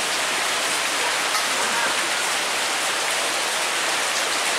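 Heavy rain falling steadily onto a pond's water surface, a constant even hiss.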